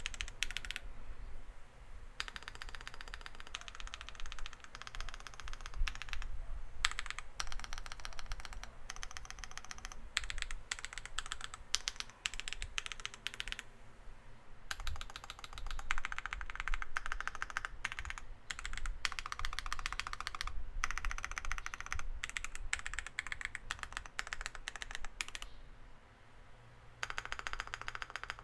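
Mechanical keyboard typing in quick runs with short pauses: factory-lubed Akko Cream Black linear switches in an aluminium case with a polycarbonate plate and PBT keycaps.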